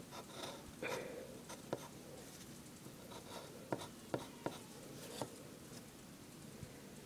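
Pencil drawing on lined notebook paper: faint scratching strokes with a few sharp ticks scattered through.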